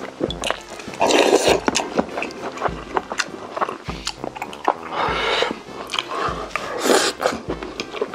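Close-miked eating of noodles: three long slurps, about a second in, around five seconds and near seven seconds, with wet chewing and small mouth clicks between them.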